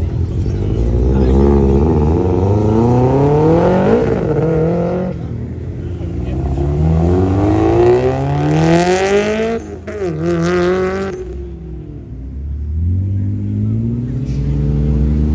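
Performance car engine accelerating hard away, its pitch climbing steeply, dropping at a gear change about four seconds in and again near ten seconds, then rising once more near the end.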